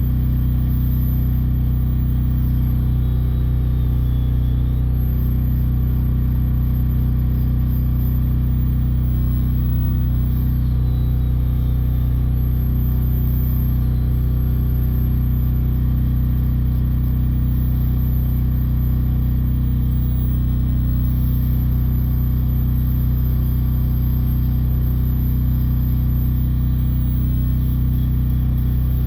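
Power carving tool running continuously at a steady speed, with a faint high whine that wavers up and down.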